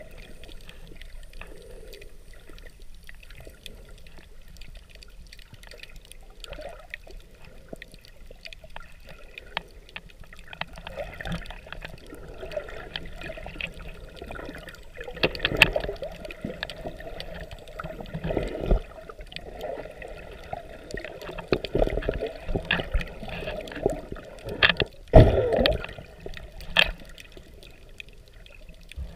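Water heard underwater on the camera: a low, muffled sloshing and gurgling that grows into louder, irregular surges in the second half.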